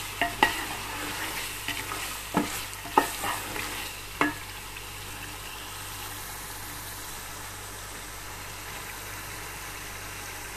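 Spiced chicken, potatoes and tomatoes sizzling in a pot. A wooden spoon stirs and knocks against the pot several times in the first four seconds, then only the steady sizzle remains.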